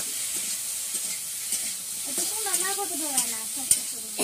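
Small fish frying in a steel wok, sizzling steadily, while a spatula stirs them with scattered scrapes and clinks against the pan. A voice speaks briefly around the middle.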